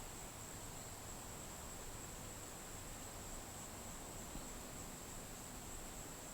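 Faint, steady high-pitched insect drone, like crickets calling continuously, over a low background hiss.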